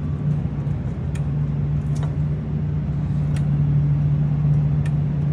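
A steady, unchanging low mechanical hum, with a few faint light clicks over it.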